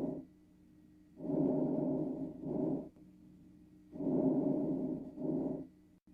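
Recorded lung breath sounds as heard through a stethoscope: two full breath cycles, each a hushing breath of about a second followed after a brief pause by a shorter one, with no whistling or crackling, over a faint steady hum.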